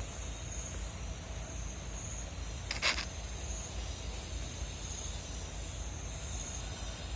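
Steady high-pitched insect chirring that swells about every second and a half, over a low rumble, with one short sharp rustle about three seconds in.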